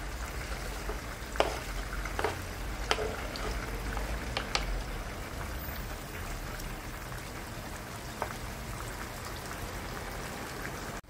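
Peppers bubbling and frying in oil in a pan as chopped tomatoes go in, with a few sharp knocks of a wooden spoon against the cutting board and pan.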